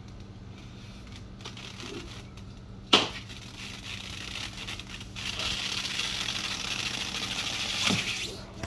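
A sharp knock about three seconds in, then about three seconds of crackly rustling and scraping as a fish shipping box is opened and its packing handled.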